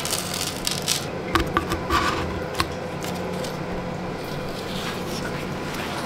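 Fingertips tapping and rubbing on a plastic-film-covered resin clock base while small crystal chips are pressed into place. A few soft clicks come between about one and three seconds in, over a steady low hum.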